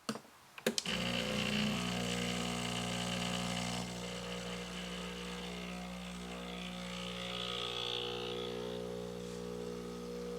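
Home espresso machine pulling a shot: a couple of clicks, then the pump starts under a second in and hums steadily as it pushes water through the coffee puck.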